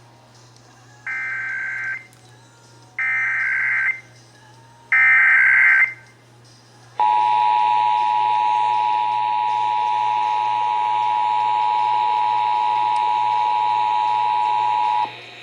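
Emergency Alert System header: three short bursts of SAME data tones, each about a second long with a second's gap between them, then about seven seconds in the EAS two-tone attention signal (853 and 960 Hz together), a steady chord held for about eight seconds before it cuts off. It marks the start of an alert, here a Required Monthly Test.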